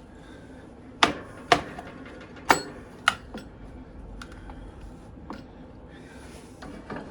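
Horizontal metal band saw labouring to cut through a SATA hard drive: four sharp knocks in about two seconds over a faint steady machine hum.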